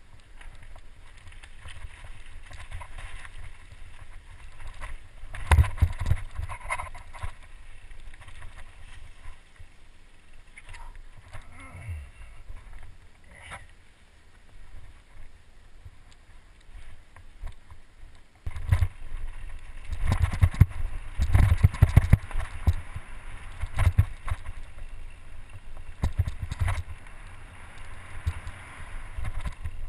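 Mountain bike running down a rough dirt downhill trail, heard through a head-mounted action camera's microphone: rushing wind, tyre noise and the bike rattling. Hard jolts and knocks come around six seconds in and thickly from about 18 to 27 seconds, with a quieter stretch in between.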